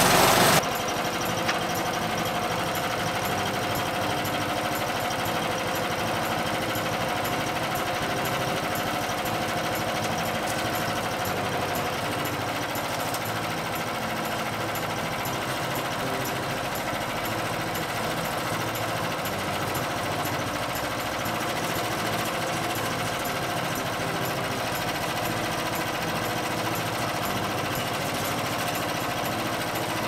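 Small gasoline engine of a portable bandsaw mill idling steadily.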